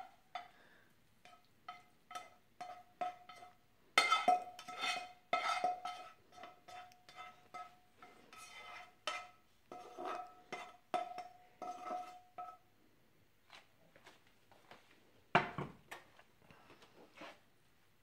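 Spatula tapping and scraping against mixing bowls, roughly two taps a second, each tap ringing briefly with a clear tone as food is knocked out of one bowl into another. A single louder knock comes near the end.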